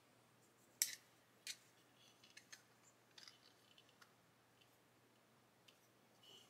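Faint clicks and ticks of a plastic bar clamp being handled and adjusted, its jaws sliding on metal rods around a plastic model part: two sharper clicks in the first second and a half, then a scatter of small ticks.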